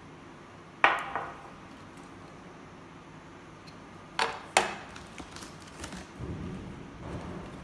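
A glass chemical bottle set down on a bench with a sharp knock and a brief ring about a second in, followed by two more quick sharp knocks a little over four seconds in and low rustling handling noise near the end.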